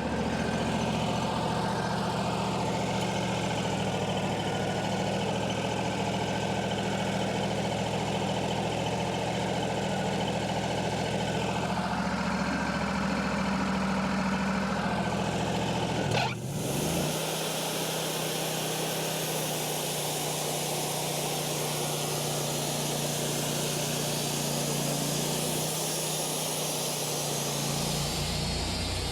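Wood-Mizer LT40 band sawmill's engine running steadily. About halfway through the sound shifts suddenly and the low hum drops away, then it runs on steadily.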